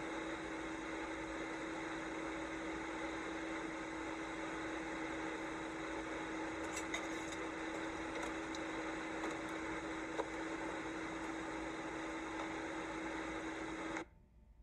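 Steady whoosh of a laminar flow cabinet's blower with a constant hum, and a few light clicks and taps as a plastic mouse cage is handled inside it. The sound cuts off abruptly near the end.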